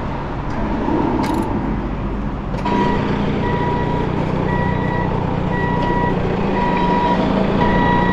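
A vehicle's reversing alarm beeping about once a second over its running engine, starting nearly three seconds in. A couple of sharp clicks come before it.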